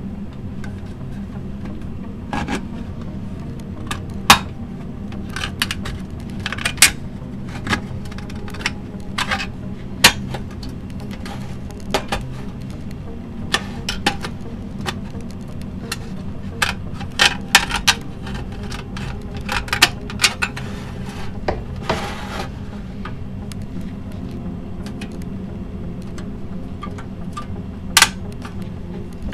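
Tin snips cutting into the steel lid of a tin can: irregular sharp metallic snips and clicks, sometimes several in quick succession, with a brief scrape about two-thirds of the way through, over a steady low hum.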